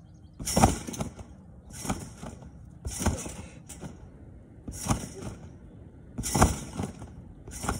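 Repeated bouncing on a backyard spring trampoline, about six bounces, one every second or so. Each landing is a thud on the mat with a bright jangle from the springs.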